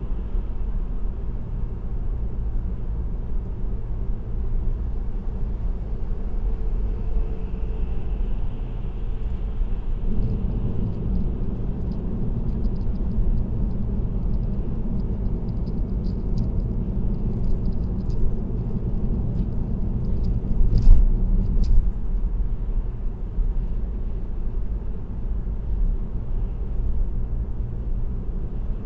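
Car cruising on an expressway, heard from inside the cabin: a steady low rumble of road and engine noise. A scatter of faint ticks comes through in the middle, and a single louder bump about two-thirds of the way in.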